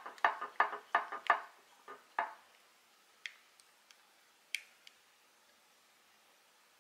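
Silicone spatula knocking and clicking against a glass container while stirring thick melted dark chocolate: a quick run of light taps for the first two seconds or so, then a few sparse faint clicks.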